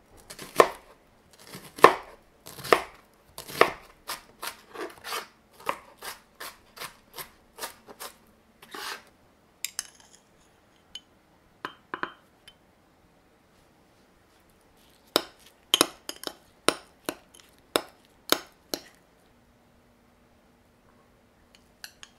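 Kitchen knife chopping onion on a plastic cutting board: a run of sharp, regular cuts for several seconds, then a few light clicks, then a second, quicker run of cuts.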